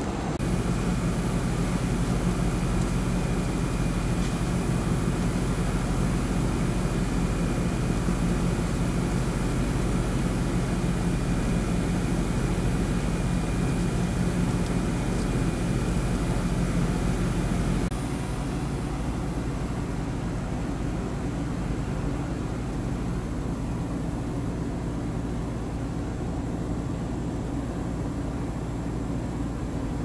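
Air conditioner outdoor unit running: a steady low mechanical hum with a faint high whine above it. About two-thirds of the way through it becomes slightly quieter.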